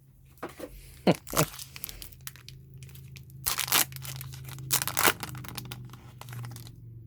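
Foil wrapper of a Pokémon booster pack being torn open and crinkled, in a few sharp rips and crackles between softer rustling as the cards are pulled out.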